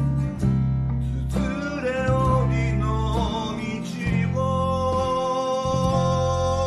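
Band cover of a Japanese folk-pop song: strummed acoustic guitar with electric guitar, electric bass and keyboard, and a man singing who comes in about a second and a half in.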